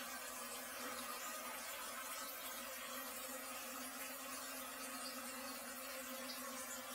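Faint steady hum with a light hiss: room tone, with no distinct events.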